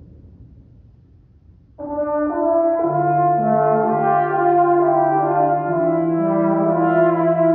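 Trombone choir of eight trombones playing a hymn in sustained chords. After a faint opening the full ensemble comes in together about two seconds in, with the bass line joining about a second later.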